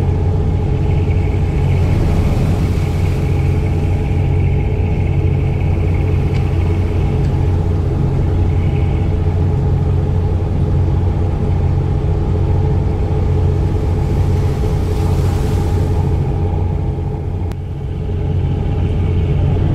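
Fishing boat's engine running steadily, a loud low drone that does not change. Two short swells of hiss rise over it, about two seconds in and again near fifteen seconds.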